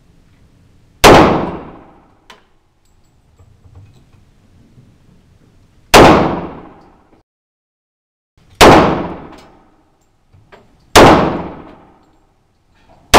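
Ruger P91DC semi-automatic pistol in .40 S&W fired five single shots: two about five seconds apart, then every two to three seconds, the last right at the end. Each sharp crack rings off in the echo of the indoor range.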